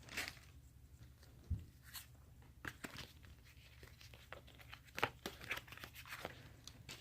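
Faint handling of Pokémon trading cards and a foil booster-pack wrapper: scattered short crinkles, rustles and small taps.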